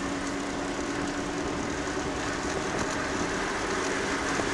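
Steady cabin noise of a car driving: the rush of tyres on the road with a low engine hum that shifts slightly in pitch about halfway through.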